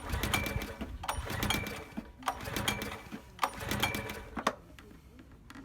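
Subaru SG550 portable generator's small engine making a rhythmic mechanical sound, about one burst a second with a click at the start of each, dying away near the end.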